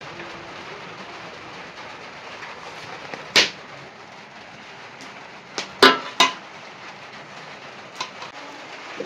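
Sharp clinks of steel kitchenware knocking together: one, then a quick run of three a couple of seconds later, then a fainter one, over a steady background hiss.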